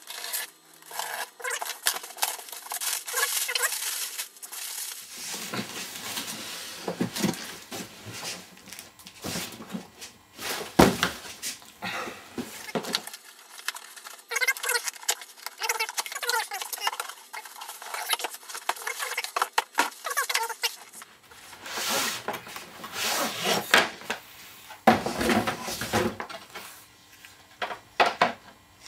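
A cardboard parcel being opened and unpacked by hand: irregular rustling and crackling of cardboard and packing material, with clicks, knocks and a few louder thumps as the contents are handled.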